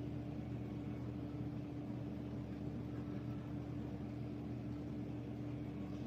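Steady low hum with one constant tone over a faint hiss: steady room noise with no speech.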